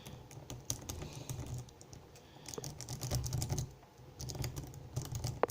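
A Bogota rake working the wafers of an Abus cable padlock's wafer lock: irregular quick light metal clicks and scratching in short flurries as the pick is raked in and out.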